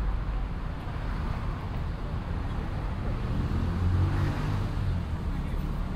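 A motor vehicle driving past, its engine note swelling to its loudest about four seconds in, over a steady low traffic rumble.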